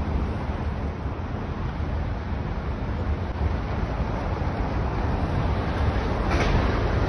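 Steady low rumble of outdoor city ambience with wind buffeting a phone's microphone, and a brief hiss about six seconds in.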